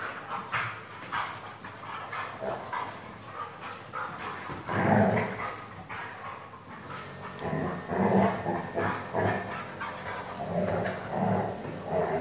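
Two dogs play-fighting, vocalizing in repeated short bursts, loudest about five seconds in and again through the second half.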